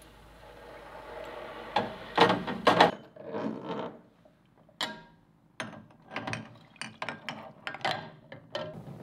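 Glass jars clinking and knocking against an enamel basin and against each other as they are set into water and shifted with wooden tongs, a dozen or so irregular knocks, with water sloshing in between.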